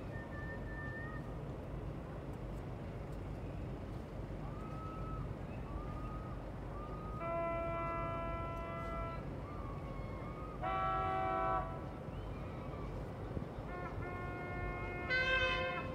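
Boat horns sounding from fishing boats in the harbour, several long blasts of different pitches one after another, with two overlapping near the end, over a steady low rumble.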